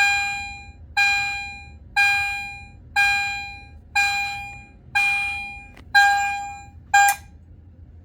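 EST Edwards Genesis series electronic fire alarm chime striking a repeated chime tone, about one stroke a second, each ringing out and fading. The last stroke is cut off sharply about seven seconds in.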